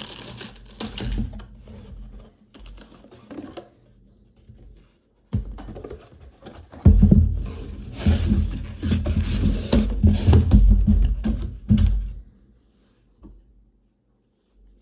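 Irregular handling noises of a garbage disposal and its parts being unpacked and set out: rustling, rubbing and knocks, heaviest and deepest between about seven and twelve seconds in, then nearly quiet.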